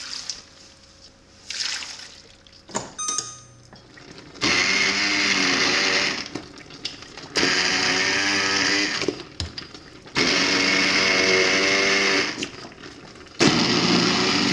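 Hand-held immersion blender run in four bursts of a second or two each, starting about four seconds in, its motor whirring as it purées cooked-down apple slices into applesauce in a large steel pot.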